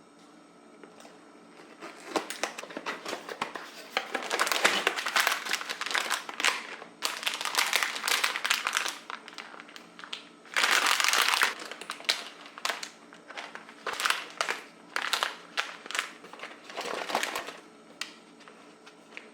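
Plastic packaging crinkling and rustling as it is handled, in irregular bursts, with one longer continuous rustle about eleven seconds in.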